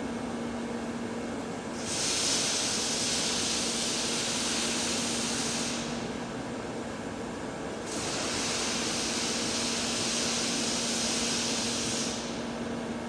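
TIG welding arc on heavy pipe, hissing in two long stretches of about four seconds with a short break between, over a steady low electrical hum.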